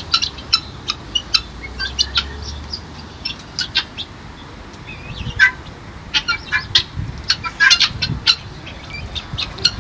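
Birds chirping: many short, sharp, high chirps in quick irregular succession.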